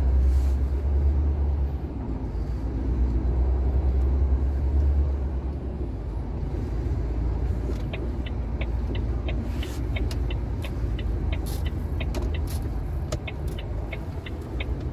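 Heavy truck engine running, heard from inside the cab as the truck pulls away, with a strong low rumble that is loudest in the first few seconds. About halfway through, a light, regular ticking starts, about three ticks a second.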